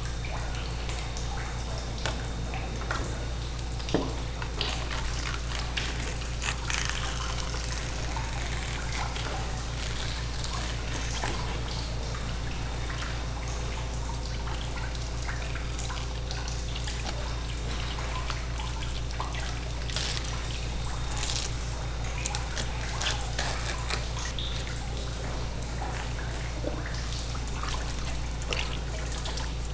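Faucet water trickling steadily onto an eel on a wet cutting board, with scattered short clicks and scrapes of the knife as the eel is filleted. A steady low hum runs underneath.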